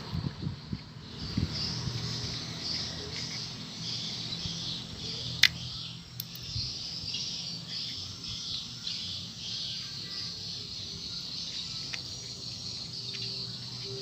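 Insects chirping in a fast, steady pulsing rhythm over a low steady hum, with one sharp click about five seconds in.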